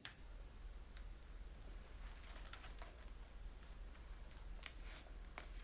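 Faint, irregular clicks and taps, about six in all, as a picture book is handled and opened, over a low steady hum.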